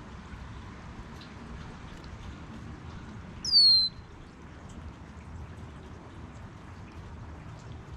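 A bird at a feeder gives one loud, clear call that slides downward in pitch, about half a second long, a little over three seconds in. Faint ticks and a low outdoor hum sit underneath.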